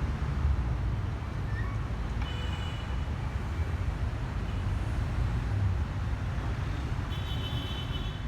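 Steady low outdoor rumble of background noise, with a few faint, brief high tones about two seconds in and again near the end.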